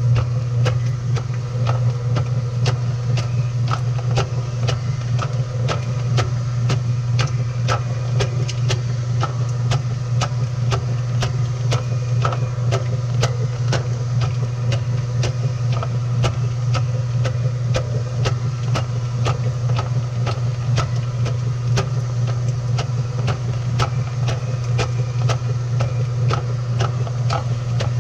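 Washing machine running, heard from inside the drum: a steady low motor hum with frequent irregular clicks and knocks from the tumbling load.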